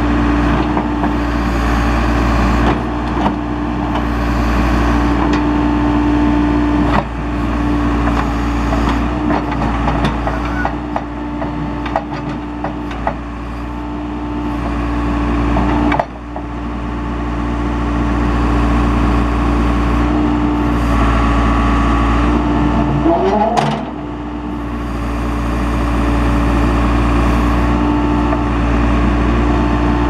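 Case 580D backhoe loader's engine running steadily while the backhoe boom swings and the bucket moves. The level drops suddenly a few times, and a brief rising squeal comes about three-quarters of the way through.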